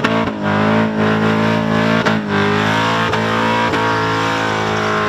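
Supercharged Holden Commodore engine held at high revs during a burnout; its pitch dips and climbs back about halfway through. Rock music with guitar plays underneath.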